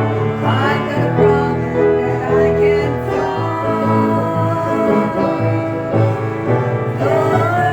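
Gospel singing with instrumental accompaniment: voices sustaining and gliding between notes over steady low keyboard and bass notes.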